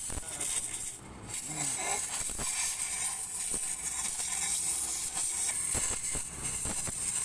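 Gas cutting torch hissing steadily as its flame cuts through a rusted scooter exhaust pipe, with a few faint clicks; the hiss dips briefly about a second in.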